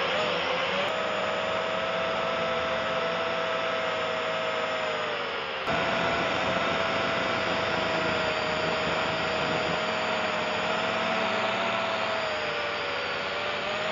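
Small quadcopter drone's motors and propellers whirring, a steady whine that shifts slightly in pitch, with a short dip and sudden jump back about six seconds in.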